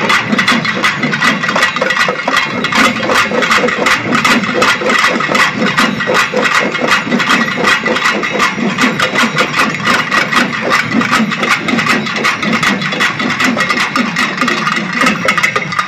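Large ensemble of pambai, the Tamil folk paired drums, playing together in a fast, loud, continuous rhythm of densely packed strokes.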